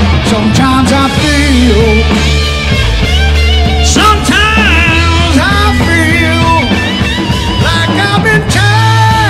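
Live rock band playing an instrumental passage: an electric lead guitar solo with string bends and a long held note near the end, over bass guitar and drums.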